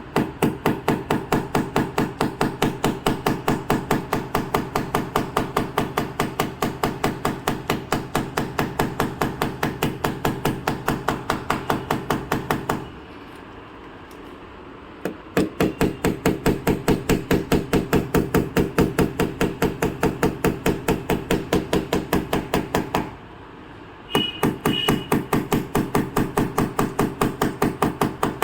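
Rapid, even light hammer taps on a car's metal body panel, about five a second, as in paintless dent repair tapping down a high spot. The taps come in three runs, pausing about 13 seconds in and again about 23 seconds in.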